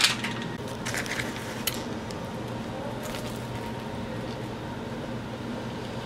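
Someone eating a cinnamon roll: a few soft clicks and squishy bites in the first couple of seconds, then only a steady low background hum.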